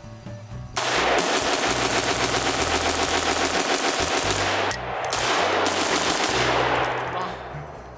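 AR-15-style rifle firing long strings of rapid shots: one string of about four seconds, a brief break, then a second string that tails off.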